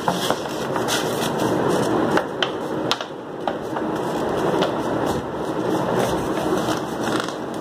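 A sheet of craft paper being folded and handled: steady rustling with scattered sharp crackles.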